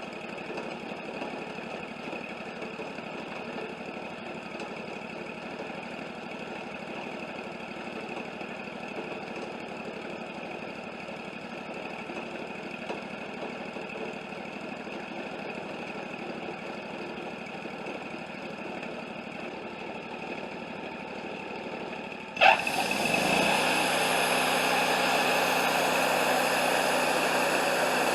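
Wood-Mizer LT40 portable bandsaw mill's engine running steadily. About 22 seconds in, a sharp click, and the sound jumps to a much louder, hissier run.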